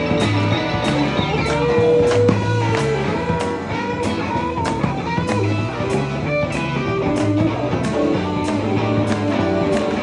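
Live band playing an instrumental stretch of a 12-bar blues: electric guitars over a steady drum beat and a walking low bass line.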